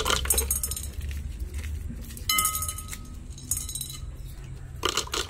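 Mentos candies clinking and rattling as they are handled and dropped into a plastic bottle, in about four short bursts.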